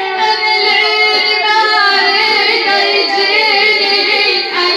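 A woman chanting a mournful Arabic na'i lament, the mullaya's voice sung in long notes that bend up and down without a break.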